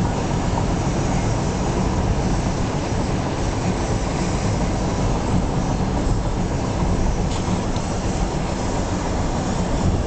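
Steady road and engine noise inside a moving car: a continuous low rumble of tyres and drivetrain at road speed, with no distinct events.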